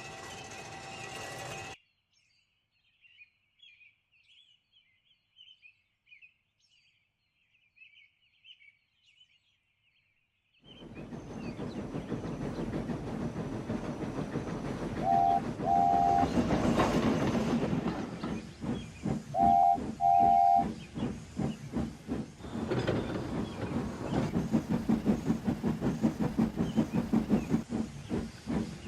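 Steam locomotive sound effects: after a steady hum that cuts off about two seconds in and a stretch of faint high chirps, the engine starts chuffing with steam hissing. It gives two short double toots on its whistle, then settles into a quick rhythmic chuff.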